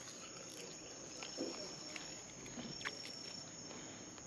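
Crickets trilling steadily as a high, thin, continuous tone, with a few faint clicks from chewing crunchy greens.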